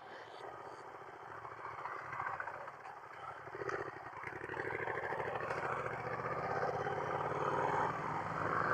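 Motorcycle engine running under way, with rushing wind noise that gradually grows louder.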